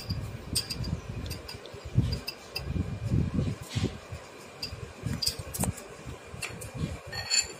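A metal spoon clinking lightly against a glass bowl in scattered small ticks while mango oil is spooned onto puffed rice, over an uneven low rumble of handling noise.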